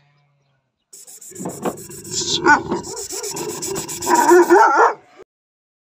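Kangal shepherd dogs barking and whining over a steady hiss, starting about a second in and cutting off suddenly near the end.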